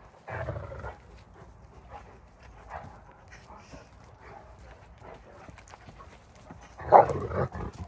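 Great Dane puppies play-wrestling, with short dog vocal sounds and scuffling; the loudest dog sound comes in a burst about seven seconds in.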